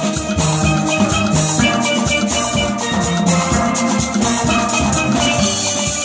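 Steel band playing: many chrome steel pans struck with sticks in quick rhythmic notes, backed by a drum kit with cymbals.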